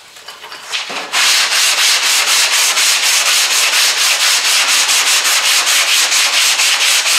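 Sandpaper on a hand sanding block scraping over cured plastic body filler (Bondo) on a car's steel quarter panel, in quick even strokes about five a second, starting about a second in. This is block sanding the filler down to find its high and low spots before primer.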